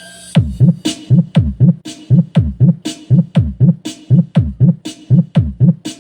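Dance remix beat for a sound check: a heavy bass kick that drops in pitch on each hit, pounding about four times a second, with sharp snare or clap hits on top. It kicks in about half a second in.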